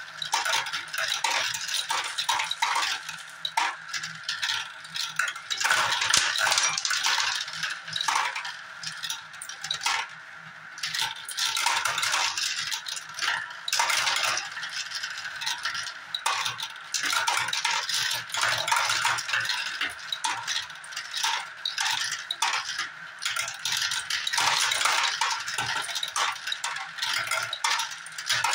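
Dozens of small balls rolling around the transparent plastic funnel bowls and dropping down the plastic tubes of a toy marble run: a continuous dense clatter of clicks and rattles, briefly quieter about ten seconds in.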